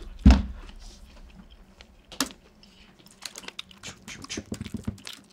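A laptop set down on the table with one solid thump, then a sharp click and a run of quick key clicks and taps as it is opened and used.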